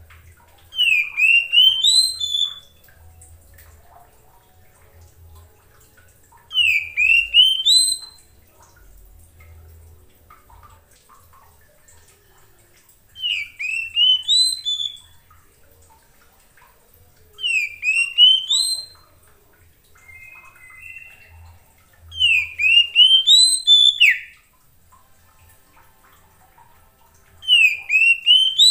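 Male Oriental magpie-robin singing: six short phrases of quick whistled notes that dip and climb upward in pitch, one every four to six seconds, with a brief lower note pair between the fourth and fifth phrase.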